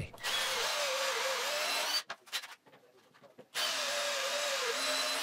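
Ridgid cordless drill boring concealed-hinge cup pockets through a hinge-drilling jig into a wooden cabinet door, its whine wavering under load. Two runs of about a second and a half each, with a pause of about the same length between them.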